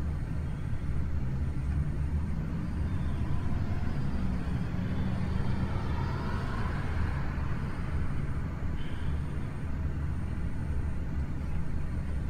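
Steady low rumble of road traffic, with a vehicle passing by about halfway through.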